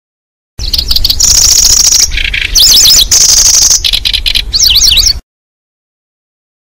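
Recorded song of the lanceolated warbler (kecici belalang) played as a bird-lure call: high, insect-like reeling trills mixed with quick chirps, over a low hum. It starts about half a second in and cuts off abruptly near the end.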